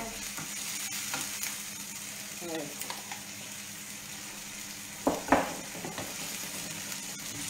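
Tomato and salmon sauce sizzling steadily in a frying pan, stirred with a wooden spoon, with two sharp knocks against the pan about five seconds in.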